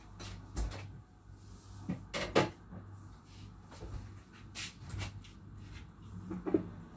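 A handful of short knocks and clicks from kitchen containers and utensils being handled and set down, the loudest about two and a half seconds in.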